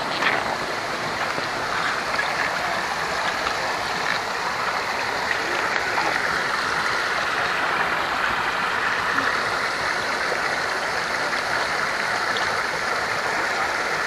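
Steady rush of flowing water, unbroken and even throughout.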